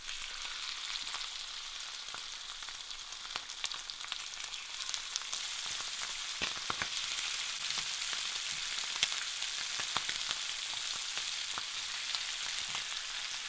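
Raw chicken thighs and wings sizzling and crackling in hot coconut oil in a cast-iron skillet as the pieces are laid in; the sizzle grows louder as the pan fills.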